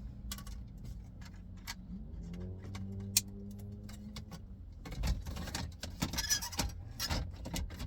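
Scattered plastic clicks and knocks from wiring-harness connectors and dash trim being handled and plugged in while a replacement head unit goes into a Toyota Camry dash, busier in the second half.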